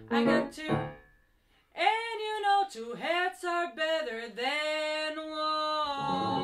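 Woman singing a jazz vocal line over piano; after about a second both stop briefly, then her voice comes back alone in sliding, bending phrases, and near the end the piano comes in again under a held note.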